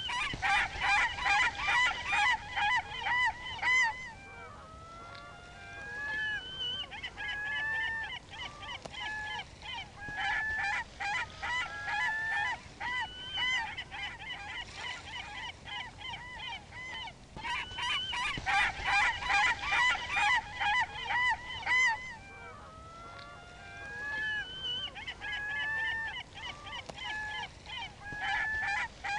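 A flock of seagulls squawking: a dense, loud burst of overlapping calls, then sparser, quieter calls. The loud burst returns about 18 seconds in.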